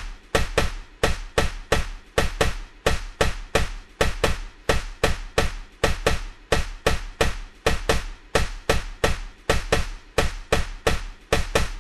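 Steady rhythmic knocking: sharp percussive strikes about three a second, each with a low thud and a brief ring.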